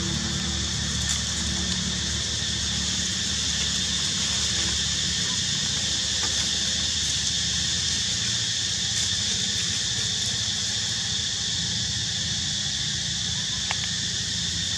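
Steady outdoor background ambience: an even high-pitched drone and hiss over a low rumble, with a few faint clicks.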